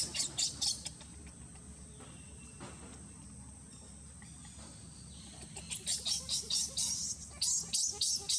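Baby macaque crying in rapid high-pitched squeaks, about three to four a second, in a short bout at the start and again from about five and a half seconds on. A faint steady high insect drone runs underneath.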